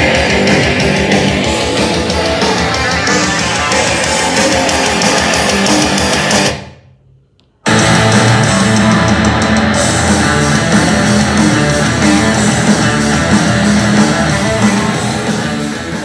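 Rock music with guitar and drums played through portable Bluetooth speakers, a JBL Charge 5 and a Bose Portable Home Speaker, in a side-by-side sound test. The music fades out about six and a half seconds in. After about a second of silence it starts again suddenly with stronger bass as the test switches speakers.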